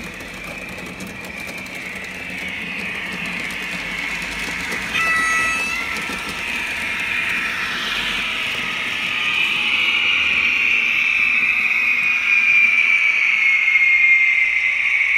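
Model BR 231 diesel locomotive with a sound decoder running, its engine sound and motor whine from the small onboard speaker growing louder and sliding slowly down in pitch near the end. A short horn-like toot sounds about five seconds in.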